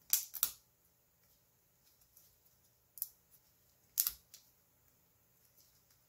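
A few sharp plastic clicks and taps from handling a 3D-printed keypad faceplate fitted with snap-in Cherry MX Clear key switches: two close together at the start, another about three seconds in, and the loudest about a second later.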